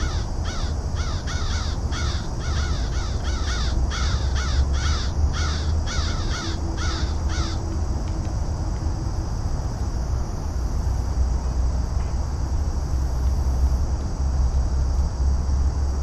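A flock of crows cawing in a fast, overlapping run of harsh calls, about two to three a second, that stops a little past halfway. Underneath is a steady low rumble that carries on.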